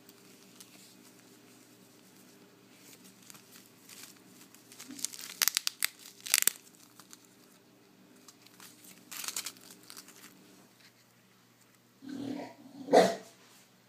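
Clear plastic bags of loose glitter crinkling as they are handled, in bursts about five to six and a half seconds in and again around nine seconds in. Two short louder sounds near the end, the second the loudest.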